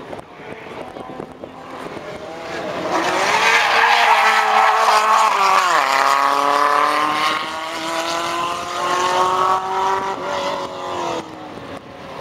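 Vintage Renault saloon race car's small rear-mounted four-cylinder engine working hard as the car passes close, loudest a few seconds in. The note drops sharply about halfway through, as at a gear change, then climbs steadily as the car accelerates away, and drops again near the end.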